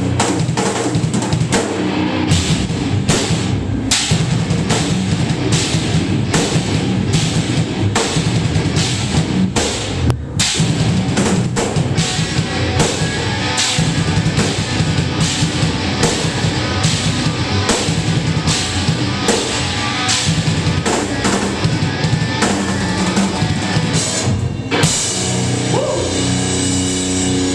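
Loud rock or heavy-metal music with a driving drum kit, which stops abruptly at the end.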